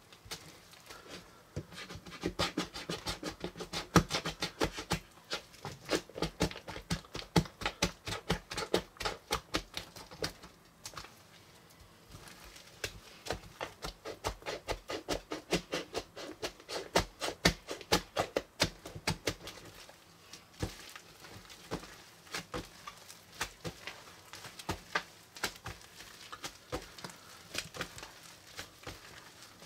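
Hands kneading and squeezing a large lump of slime and putty mixed with Floam foam beads: dense crackling and popping clicks, easing off briefly about ten seconds in and again about twenty seconds in.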